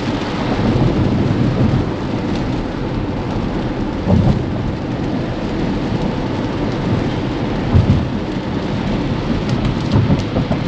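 Rain and wet-road tyre noise heard inside a Tesla Model X's cabin while driving: a steady rushing hiss over a heavy low rumble, with a couple of brief low thumps about four and eight seconds in.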